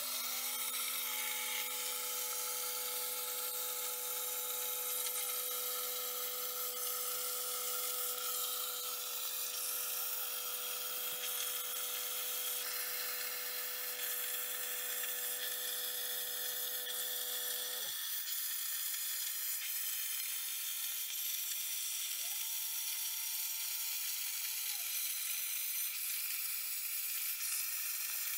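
Langmuir Crossfire Pro CNC plasma table with a Razorcut 45CNC torch cutting steel plate: a steady hiss from the plasma arc, with the gantry motors whining up in pitch, holding and dropping again as the torch moves. A steady hum runs under it and stops with a falling pitch about two-thirds of the way through.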